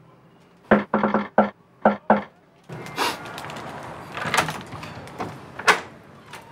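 Knocking on a front door with glass panels: about six sharp raps in two quick runs, then duller knocks and clatter at the door.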